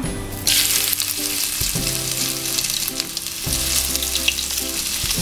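Crushed ginger and garlic hitting hot coconut oil and frying. It starts sizzling suddenly about half a second in and keeps sizzling steadily.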